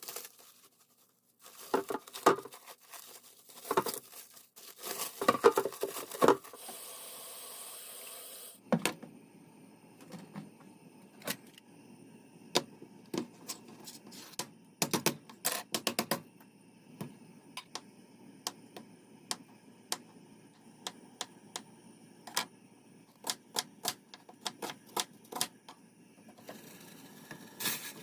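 Light irregular clicks and taps, several a second in places, after a few seconds of handling knocks and a brief hiss.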